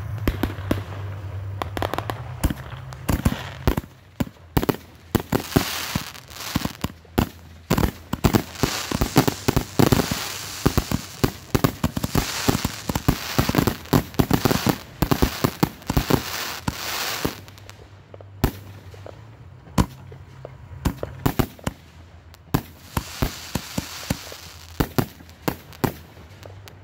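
Aerial fireworks shells bursting in a finale barrage: many sharp bangs with dense crackling, thickest from about four to seventeen seconds in, then thinning to scattered bangs.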